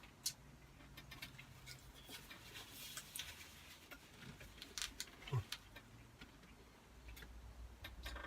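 Faint, scattered small clicks and taps of eating at a table, such as cutlery on a plate and chewing, with one short low sound about five seconds in.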